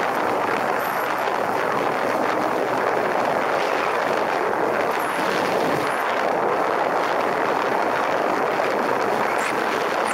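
Steady wind rush on the microphone of a camera riding along on a moving motorcycle, an even roar with no clear engine note standing out.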